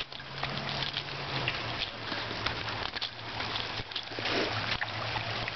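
Rushing river water, a steady hiss, with scattered scuffs and clicks of footsteps on the dirt bank; the water gets louder about four seconds in as the bank is reached.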